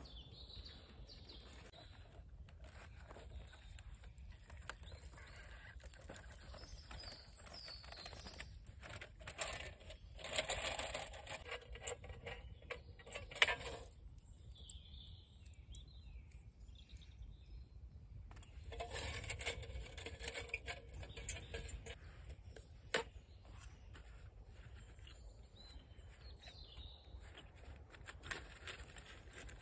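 Small woodland birds chirping now and then over a low wind rumble. There are two stretches of rustling and scraping as camping kit and a metal dish are handled, and a couple of sharp clicks, the loudest about halfway through.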